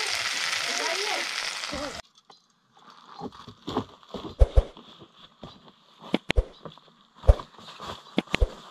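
Cassava sticks frying in a pan of hot oil on a wood-fired stove: a loud, steady sizzle that cuts off about two seconds in. After that come scattered crackles and soft thumps of footsteps through dry leaf litter.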